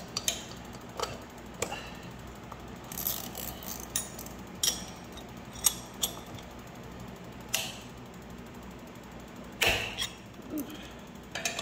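A ratchet and a combination wrench working the seized rear sprocket bolts of a mini bike loose: irregular metallic clicks and clanks of tool on bolt, with a louder cluster of knocks about ten seconds in.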